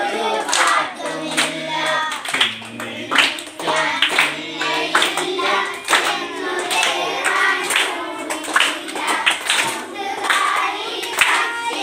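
A group of children and a man singing a song together while clapping their hands in time, about two claps a second.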